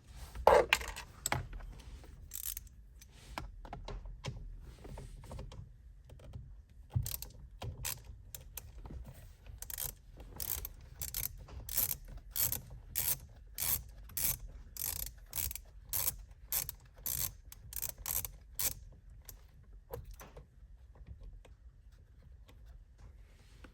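Socket ratchet wrench with an 8mm socket clicking in a steady run of strokes, about two clicks a second, as it backs out a steering-wheel airbag retaining screw. A few knocks of tool handling come first, and the clicking thins out near the end.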